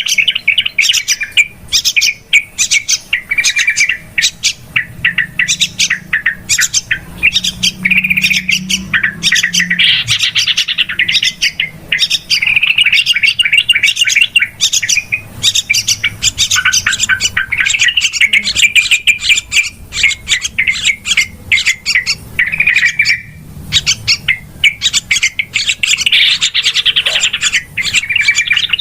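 Yellow-vented bulbuls (trucukan) calling busily: quick chirps and short bubbling phrases one after another without a break. This is the noisy chatter used as a lure call to draw in bulbuls.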